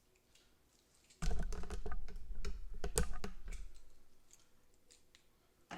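Trunk latch of a 2013 Honda Civic releasing and the lid coming up, a run of clicks and clatters for about three seconds starting about a second in: the remote trunk release working again after the repair.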